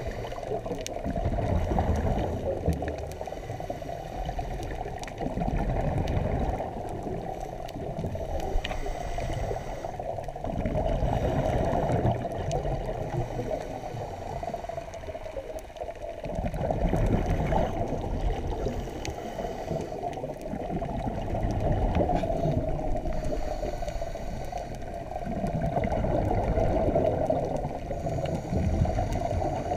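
Scuba divers breathing through regulators, heard on an underwater camera: exhaled bubbles gurgling in swells roughly every five seconds over a steady, muffled underwater rush.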